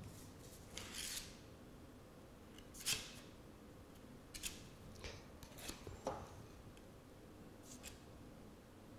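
Faint scrapes and light clicks of a putty spreader drawing clear filler across a carbon-fibre panel, in several short, separate strokes.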